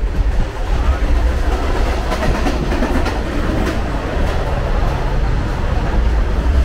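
Indian Railways sleeper coach running, heard from inside: a steady low rumble of wheels on track, with a few sharp clacks from rail joints in the middle.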